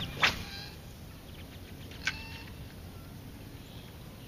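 Faint outdoor background with small birds chirping now and then, and two short sharp sounds: a louder one about a quarter second in and a smaller one about two seconds in.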